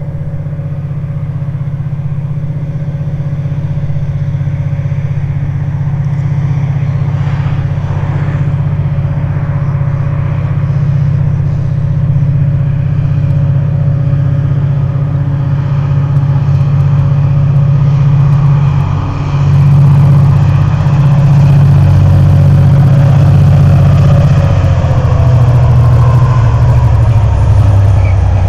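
Irish Rail class 071 diesel locomotive, with its EMD V12 two-stroke engine, running under load as it hauls an ore train. It is a deep, steady engine drone that grows louder as the locomotive approaches. Its pitch drops slightly near the end as the locomotive draws level.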